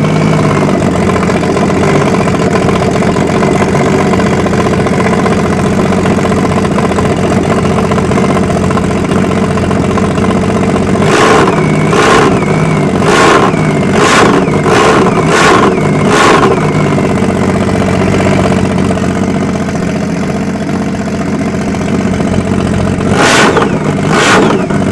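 Freshly rebuilt supercharged Rotax four-stroke three-cylinder of a 2005 Sea-Doo RXP running loud on a test fire. About eleven seconds in comes a quick string of about six sharp blips, and three more come near the end.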